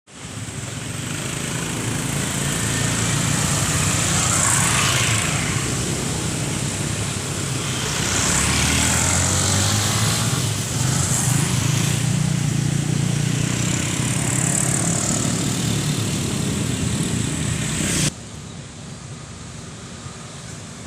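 Engines of heavy road-building machinery running, swelling and easing in loudness. About eighteen seconds in the sound cuts abruptly to a quieter engine.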